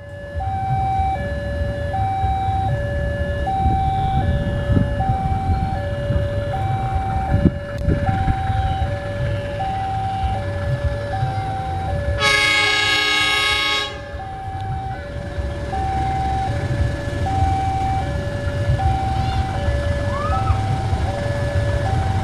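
Railway level-crossing warning alarm sounding two alternating tones, high then low, about one pair a second, over a low rumble. About twelve seconds in, the diesel locomotive's horn blows once for about two seconds.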